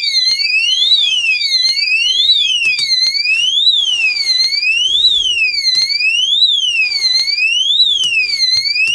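Oxford Screamer 7 motorcycle disc lock alarm sounding after being disturbed while armed: a siren tone sweeping up and down, about one full rise and fall every second and a half. Measured on a phone app, it peaks at about 73 decibels, well short of the 100 decibels Oxford claims.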